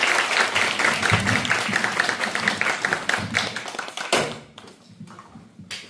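Audience applause, a dense patter of many hands clapping that dies away about four seconds in, leaving a few scattered claps.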